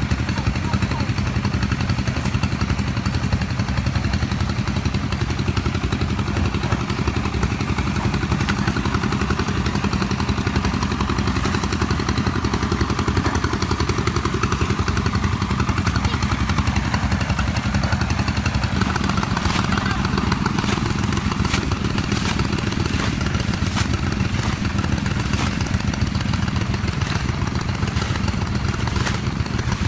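An engine running steadily at an even speed, a constant low drone that does not change.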